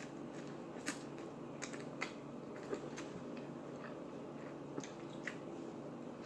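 Close-miked chewing of a mouthful of burger: scattered short, wet mouth clicks and smacks over a faint steady hum.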